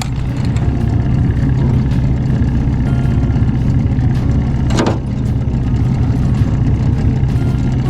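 Boat motor running steadily at slow trolling speed, a low even hum, with one short knock about five seconds in.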